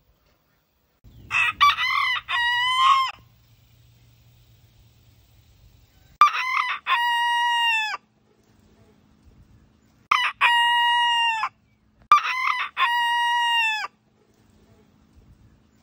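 A rooster crowing four times, a few seconds apart. Each crow is a short opening syllable followed by a long held note that drops off at the end. The first crow is choppier, broken into several short pieces.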